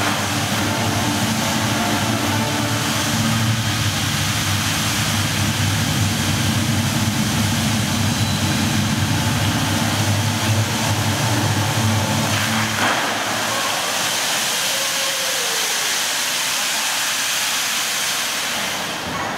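Fountain water jets spraying and falling back into a pool: a steady rushing hiss of water. A low hum underneath cuts off suddenly about 13 seconds in while the water hiss goes on.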